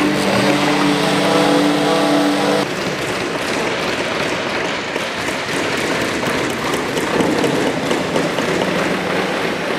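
A small power tool's motor runs with a steady whine, then breaks off about two and a half seconds in. A dense clatter of many quick taps and knocks on wood follows, from a room full of children at woodwork.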